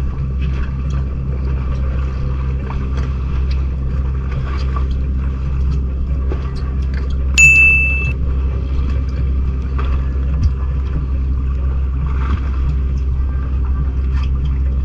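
Steady low hum of the boat's engine running. About halfway through, a short, high electronic ding from the subscribe-button animation rings out over it, the loudest sound here.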